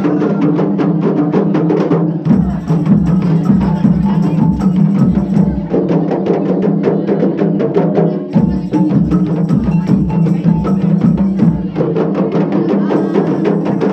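Music with rapid, dense percussion strokes over a steady low tone, the drumming dipping briefly about two seconds in and again about eight seconds in.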